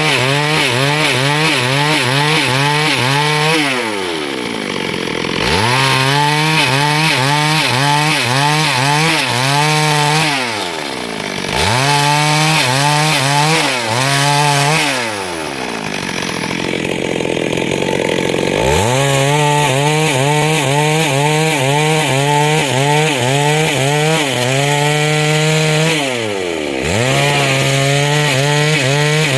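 Chainsaw cutting through wood under load, its engine note holding steady with a slight wavering. It falls away and picks back up four times between passes.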